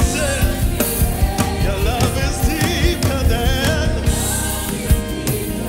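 Live gospel worship music: a band with drum kit plays while singers sing lead, their lines wavering and sliding in pitch over a steady drum beat.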